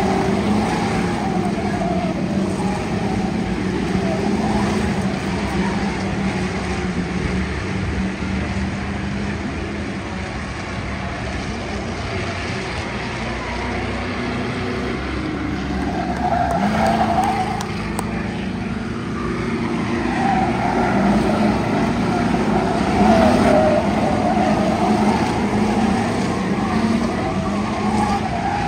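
Race car engines running around the track, with one engine's pitch rising and falling as it revs up and eases off, about halfway through and again near the end.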